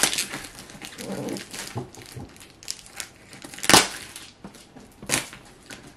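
Scissors cutting and tugging at the packing tape and plastic film wrapped around a cardboard parcel: irregular crinkling and crackling of the plastic, with two louder sharp crackles, one near the middle and one about a second before the end.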